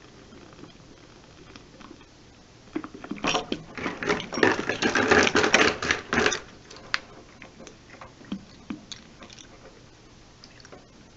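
Water running and splashing out of the water heater's open relief-valve port into a bucket: a dense, clattering burst of a few seconds in the middle. Scattered sharp clicks come before and after it.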